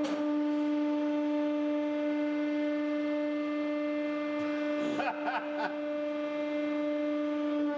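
Hydraulic press's pump running with one steady whine as the ram comes down, with a brief rougher patch about five seconds in as the ram squashes a Play-Doh figure.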